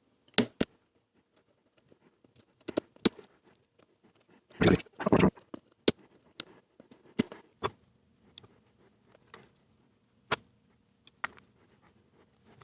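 Sharp, scattered clicks of small cutters snipping LED legs and of the metal leads and tools being handled, with a brief louder rustle about halfway through.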